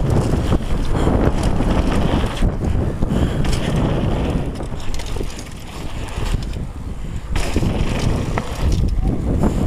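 Wind buffeting an action camera's microphone as a downhill mountain bike rolls fast over a dirt trail, with tyre noise and scattered clattering knocks from the bike over bumps. The rush eases off briefly a little past the middle, then comes back.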